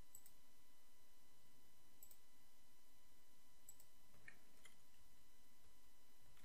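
A handful of faint, irregularly spaced computer mouse clicks over a steady faint hiss.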